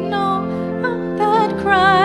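Hymn singing with organ accompaniment: sustained organ chords, joined about a second in by a singing voice with strong vibrato.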